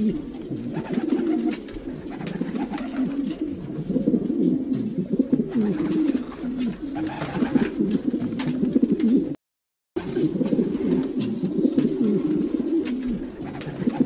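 Many domestic pigeons cooing over one another, a dense low warbling chorus, broken by a half-second gap of silence about nine and a half seconds in.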